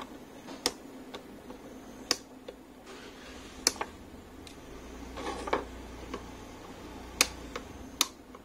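Side cutters snipping the excess leads of freshly soldered components on a circuit board: about six sharp clicks, irregularly spaced, with some soft handling rustle in the middle.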